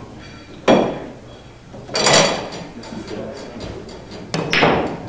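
Pool balls clacking during a 9-ball shot: three sharp, ringing clicks of cue and balls striking, about a second in, a quick cluster near two seconds, and again near four and a half seconds.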